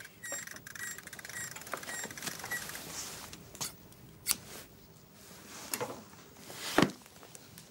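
Faint high squeaks repeating several times a second for the first couple of seconds. Then a few sharp knocks and rustles as a large leather-bound book is handled and opened.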